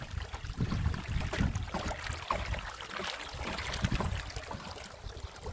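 Water glugging out of a plastic jerrycan and splashing into a wheelbarrow tray that already holds water.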